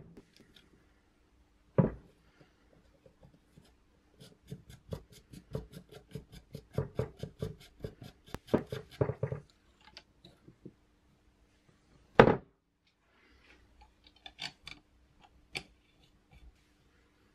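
Small parts being handled and fitted on a RockShox Reba mountain bike fork on a wooden bench: a run of quick, even clicks lasting about five seconds, with a few knocks, the loudest about twelve seconds in.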